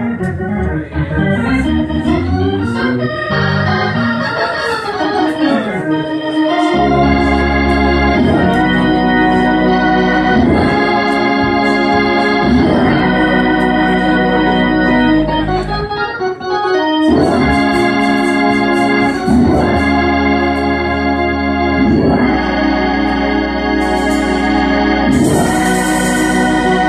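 Organ playing sustained chords that change every couple of seconds over deep held bass notes. A brief high hiss comes near the end.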